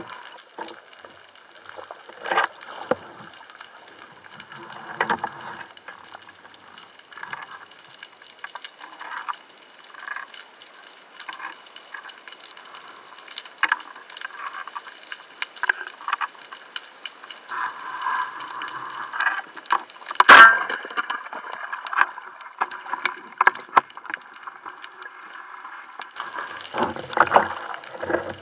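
Underwater sound picked up through a speargun-mounted camera's housing: a steady muffled water hiss with scattered light clicks and knocks from the gun and the diver's movements, and one much louder sharp knock about two-thirds of the way through. Near the end, heavier sloshing and bubbling as the diver comes up near the surface.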